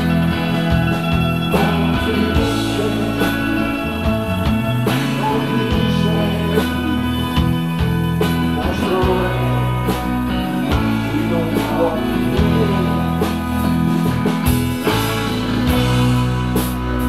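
Rock band playing live: two electric guitars, an electric bass and a drum kit.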